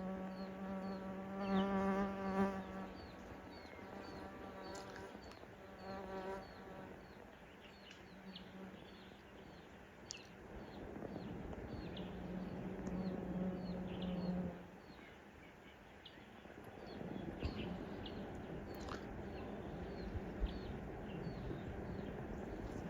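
A flying insect buzzing, coming and going in three spells as it passes close. Behind it, a steady train of short, high chirps repeats about twice a second.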